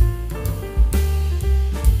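Background instrumental music with a drum kit beat and a bass line.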